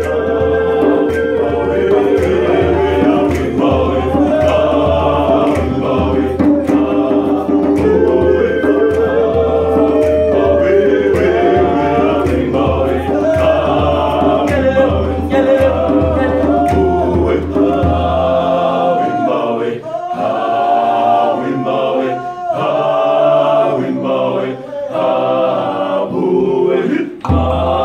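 Male a cappella vocal group of six singing a chant-like song in close harmony. A deep low part drops out about two-thirds of the way in and returns near the end.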